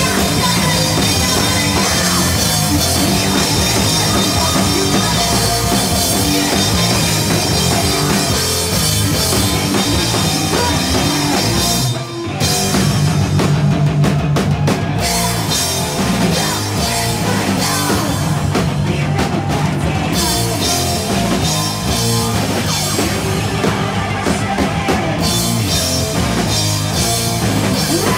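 Live heavy rock band playing loud, with electric guitar and a full drum kit with cymbals, and a brief break about halfway before the band comes back in.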